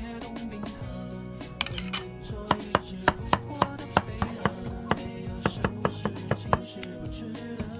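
Kitchen knife cutting a block of firm tofu into pieces on a cutting board, knocking on the board about three times a second from about a second and a half in.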